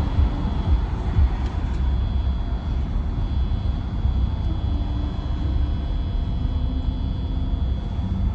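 Steady low road and engine rumble of a van being driven, with a faint steady high whine above it.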